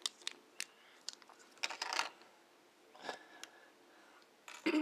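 Plastic LEGO bricks being handled and pressed together: a few scattered sharp clicks and short rattles.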